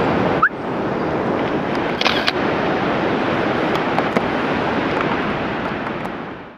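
Steady rush of ocean surf and wind on a beach, with a short rising chirp about half a second in; it fades out at the end.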